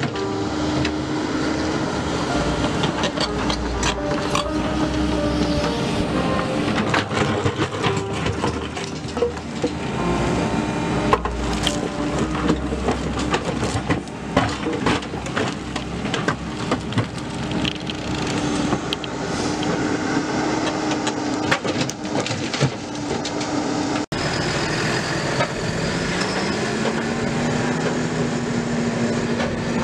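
Doosan DX140 tracked excavator's diesel engine running steadily under load while its bucket digs and scrapes through rock, with stones clattering and knocking against the steel. About 24 seconds in, the sound cuts to a farm tractor's diesel engine rising in pitch as it pulls a loaded dump trailer away through mud.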